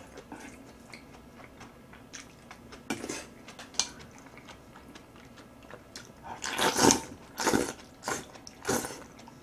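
Eating noises: small spoon clicks against a stone bowl and chewing, then several loud slurps from about six to nine seconds in as seaweed soup (miyeok-guk) is sucked from a spoon.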